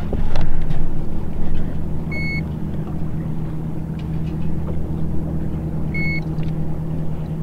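Steady low hum of a motor running on a bass boat. Two short electronic beeps about four seconds apart come from a handheld digital fish scale as a bass is weighed on it.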